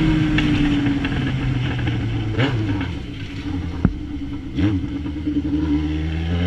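Yamaha XJ6's inline four-cylinder engine through an Atalla 4x1 aftermarket exhaust: the revs fall away over the first few seconds, the engine runs low with a single sharp pop in the middle, then the revs climb again near the end.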